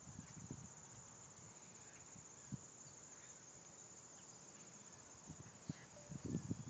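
Faint, steady high trill of field insects, with a few soft low thumps, most of them near the end.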